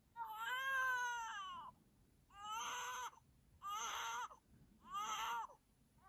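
A cartoon boy's crying voice: four high wails, the first long and the other three shorter, each dropping in pitch at its end.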